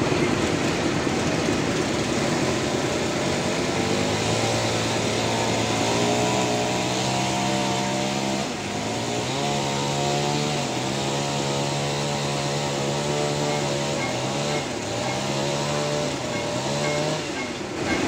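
Sawmill cutting through a trembesi (rain tree) log: a continuous cutting noise with a machine drone that comes in about four seconds in, sags in pitch and recovers three times as the cut loads it, and fades out near the end.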